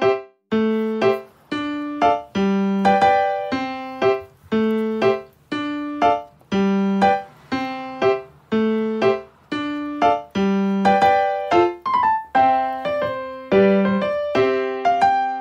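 Background keyboard music: piano-like chords and notes struck at a steady, even pace, each one ringing and fading before the next.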